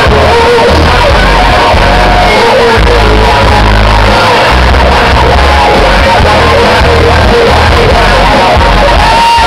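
A live band playing rock music through a large outdoor stage PA, with singing over a heavy, pulsing bass; recorded very loud from among the audience.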